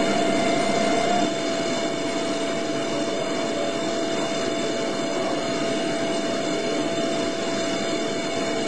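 Milling machine cutting with a small carbide end mill: a steady mechanical whine of several fixed high tones over a dense cutting hiss.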